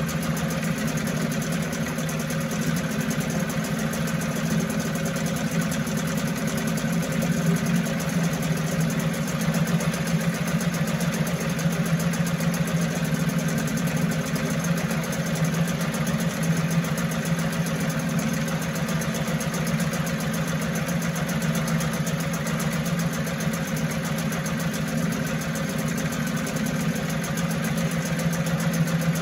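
1974 Mercury 4 hp single-cylinder two-stroke outboard running steadily with its lower unit in a test barrel of water.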